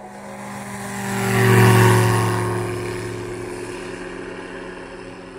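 Light propeller aircraft flying past low: the engine and propeller swell to a peak about a second and a half in, the pitch dipping slightly as it passes, then fade away.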